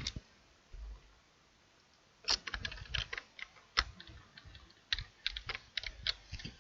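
Computer keyboard keys clicking in two quick runs of keystrokes, starting about two seconds in and again about five seconds in, with a single low thump about a second in.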